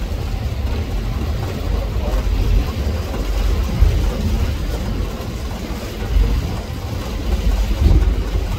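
Steady low rumble on board the Staten Island Ferry as it runs in toward the terminal, the engines and moving vessel making an uneven, churning noise.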